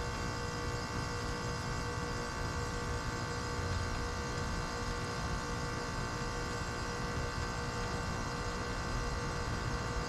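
Lennox Merit heat pump outdoor unit running steadily: an even hum made of several steady tones over a low rumble.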